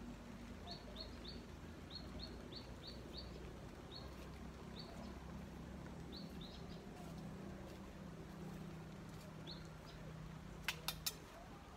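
A small bird chirping: short high notes in a quick run during the first few seconds, then scattered ones, over a faint low rumble. Near the end come three sharp clicks in quick succession, the loudest sounds.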